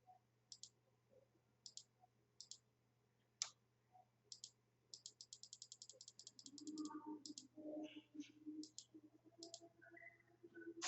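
Faint computer mouse clicks, single and in pairs, with a rapid run of about a dozen quick clicks around the middle.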